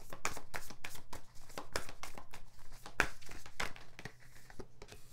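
Tarot cards being shuffled by hand: a quick, irregular run of card slaps and flicks that thins out near the end.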